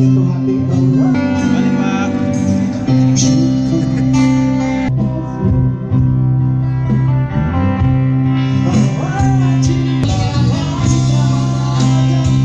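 Live band music: guitar over a Yamaha electronic keyboard playing held chords, with a voice singing.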